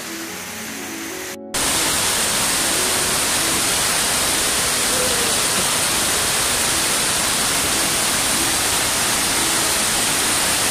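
Waterfall pouring onto rocks, heard up close: a loud, steady rushing hiss that cuts in abruptly about a second and a half in, after a short quieter stretch.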